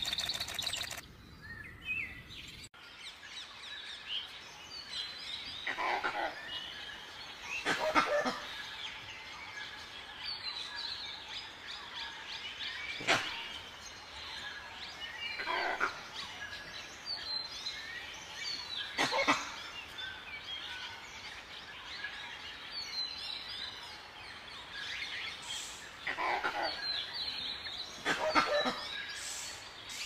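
Forest birdsong: many small birds chirping and calling throughout, with several louder short sharp sounds scattered every few seconds.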